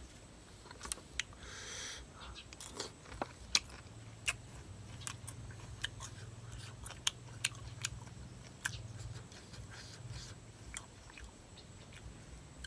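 A person chewing and biting food close to the microphone, with many sharp, irregular crunches and clicks. A low steady hum runs underneath from about four seconds in to about ten seconds.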